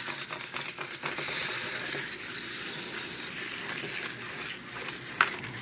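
Several small wind-up toys running at once, their clockwork mechanisms giving off a dense, steady clicking and clattering as they walk. There is one sharp click about five seconds in.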